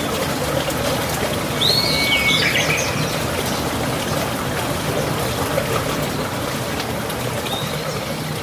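Running water trickling steadily, with birds chirping over it: a quick run of whistled calls about two seconds in, and a fainter call near the end.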